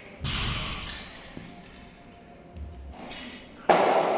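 Two loud heavy impacts, one just after the start and one about three and a half seconds later, each ringing out with a long echoing decay, with a lighter knock shortly before the second; faint music underneath.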